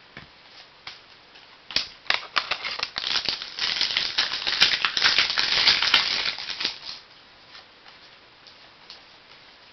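Trading cards being handled and slid against one another: a few separate clicks, then a dense run of rapid crackling from about two to seven seconds in.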